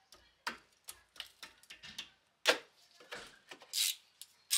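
Ratchet wrench clicking in irregular short strokes while undoing a rear brake caliper's 14 mm guide pin bolt, with one louder metallic clack about halfway through.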